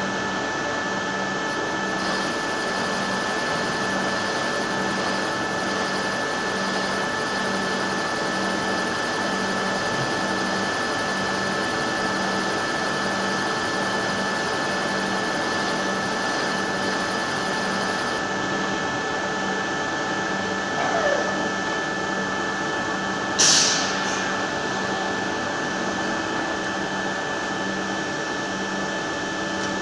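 ГФ-2171 milling machine running through its working cycle: steady machine noise with a constant high whine and a pulsing low hum. A faint higher whine stops a little past halfway, and a short, loud burst of noise comes about three-quarters of the way in.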